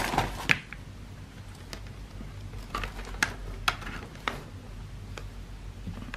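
Handling noise on a bench: a cable scraping across a silicone mat with a burst of clicks at the start, then a few separate sharp clicks and taps, over a low steady hum.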